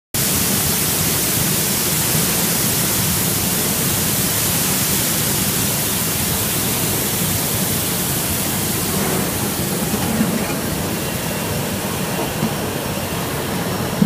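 Steady rushing hiss of water spraying from the nozzle bars and churning in the bubble-wash tank of a ginger washing machine, over a low rumble from the machine. The hiss eases a little after about nine seconds.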